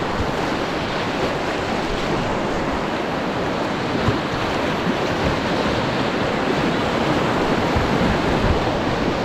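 Loud, steady rush of white-water rapids, heard from a kayak in the middle of the broken water.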